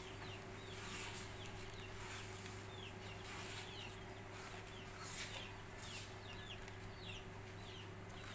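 Chicks peeping: faint, short, high cheeps that slide downward in pitch, repeating irregularly two or three times a second. A steady low hum runs underneath.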